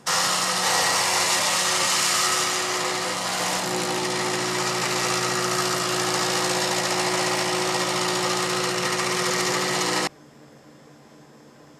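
Calcomp 565 drum plotter's stepper motors buzzing steadily as they step the drum and pen carriage while the pen draws a line wireframe. The buzz shifts in tone about three and a half seconds in and stops suddenly about ten seconds in, leaving a faint hum.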